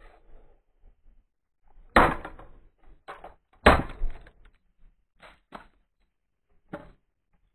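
Two hard smashing blows, about two seconds in and again under two seconds later: a piece of car door striking a small MP4 player against concrete. A few lighter knocks and clatter follow.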